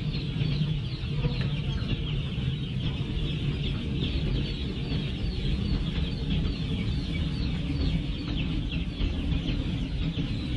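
Dozens of newly hatched chicks packed in hatchery crates, peeping without pause: a dense chorus of short, high, falling cheeps over a low steady rumble.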